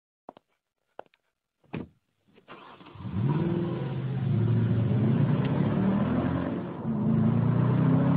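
Three short knocks, then a car engine runs as the car accelerates hard, its pitch climbing and dropping back several times.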